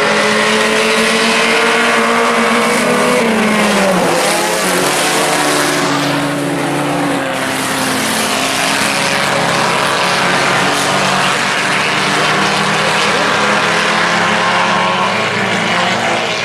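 A field of four-cylinder IMCA Sport Compact race cars running hard around the oval, several engines sounding at once at high revs. About three to four seconds in, one engine note drops in pitch as a car lifts off, then the others carry on.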